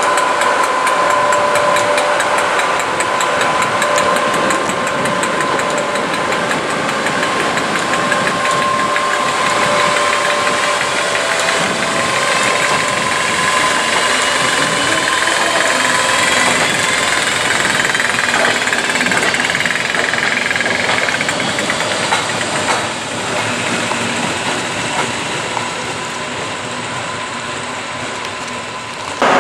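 A pair of Freightliner Class 86 electric locomotives passing at low speed, with a steady electrical hum holding two tones and a whine that rises in pitch about halfway through.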